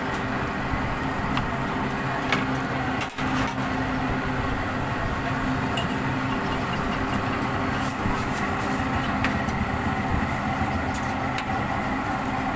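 A steady engine-like drone runs throughout. Over it come a few sharp clicks and the crinkle of thin plastic bags as they are handled.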